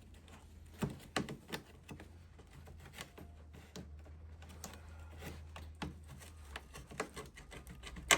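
Irregular light clicks and knocks of hands prying and working at a car's interior trim panel, with one sharper knock near the end.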